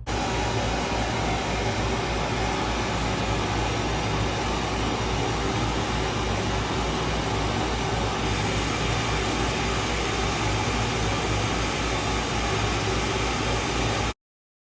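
Steady hiss-like test noise from a loudspeaker, played for an acoustic measurement of the room after its SPL meter was calibrated. It starts abruptly, holds at an even level, and cuts off suddenly about 14 seconds in.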